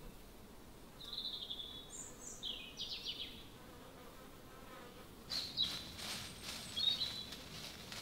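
Woodland ambience: short, high-pitched chirps and trills in two clusters, a few at a time, over a faint steady background hiss.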